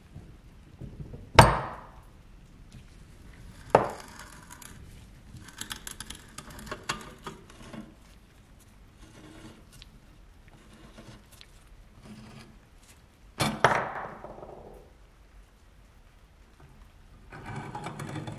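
Sharp metal clanks and knocks, with bursts of small clicks, from a wrench and the rusty steel parts of an antique air pistol being worked apart. The loudest knock comes about a second and a half in, and a pair comes later. Near the end there is a scraping rattle as the coiled mainspring slides out of the pistol's cylinder.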